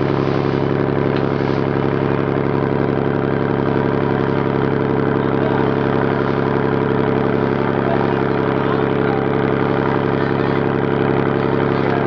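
Boat engine running steadily under way, a constant drone with no change in pitch or level.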